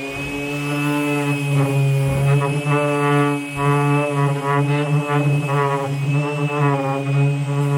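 Electric sander running with a steady, unbroken drone as it sands down old paintwork on wooden panels, with radio music and singing playing faintly under it.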